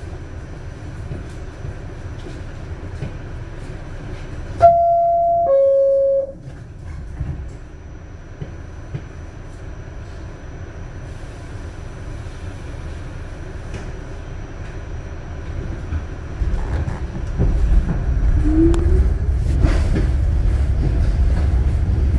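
New York City subway train standing at an elevated station, its two-note door-closing chime sounding loudly about five seconds in, the second note lower. The train then pulls out: a low rumble of the wheels and motors builds from about two-thirds of the way through, with a short rising motor whine.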